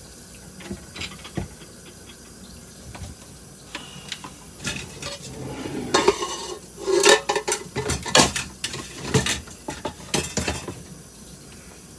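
Dishes and cutlery clinking and clattering as they are washed by hand in a sink: a few light clinks at first, then a busier run of clatter from about four seconds in, loudest in the middle.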